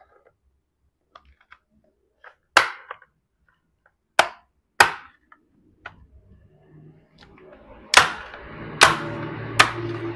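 Plastic retaining clips of an Asus A407 laptop's casing snapping loose as the top case is pried off the base: about seven sharp snaps at uneven intervals, coming quicker in the second half, with plastic handling noise between them.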